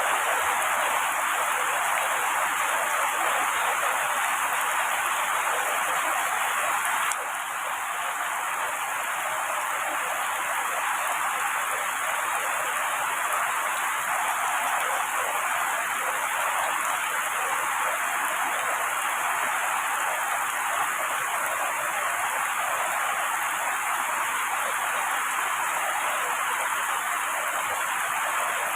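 Heavy rain falling on trees and foliage: a steady, dense hiss with no thunder. The level drops slightly and abruptly about seven seconds in.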